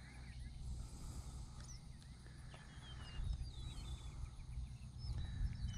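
Faint chirps of small birds, many short whistled notes scattered throughout, over a low steady background rumble.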